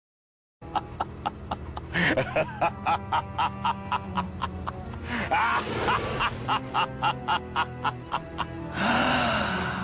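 A short music clip with a quick, steady beat of about four hits a second, with a few sliding, voice-like sounds over it. It starts after a moment of silence and cuts off abruptly.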